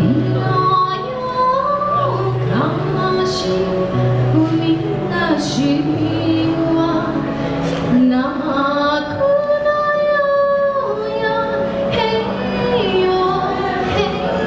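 A woman singing a melody into a microphone over backing music with a steady bass line; she holds one long note about two-thirds of the way through.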